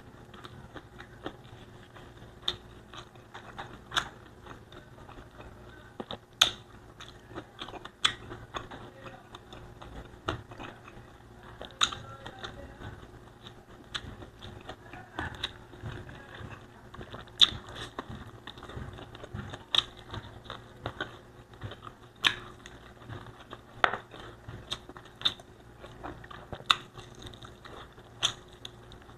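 Close-miked chewing of Bicol Express pork stew and rice, with sharp wet mouth smacks and clicks at irregular intervals, roughly every one to two seconds.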